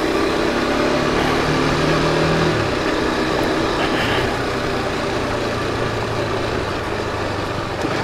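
KTM RC 390's single-cylinder engine running steadily while the bike rides along a dirt road, its note settling to a lower steady hum about two and a half seconds in.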